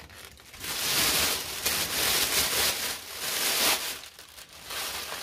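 Kitchen knife sawing into a whole pineapple's tough rind in a few rough, scraping strokes.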